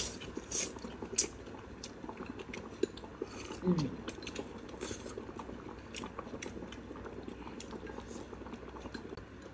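People eating noodles at a table: chopsticks and a metal ladle clicking against ceramic bowls and the pot, with light slurping and chewing, over the faint steady simmer of an electric hot pot. A brief murmur from one of the eaters comes about three and a half seconds in.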